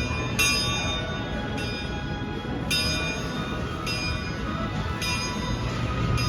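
The karakuri clock's Dutch-made chime bells ringing, struck one after another about once a second, each note ringing on into the next.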